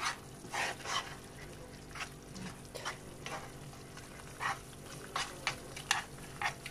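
A metal spoon stirring and scraping a frying onion, carrot and tomato-paste sauce around a nonstick frying pan, in a string of short irregular strokes, with faint sizzling of the oil.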